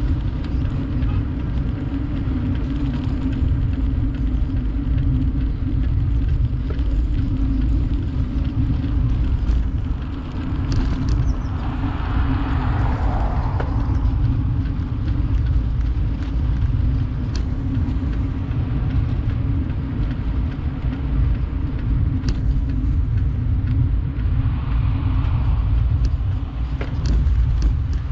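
Steady low rumble of wind and road noise while riding on a road, with a passing motor vehicle swelling and fading about twelve seconds in and a fainter one near the end.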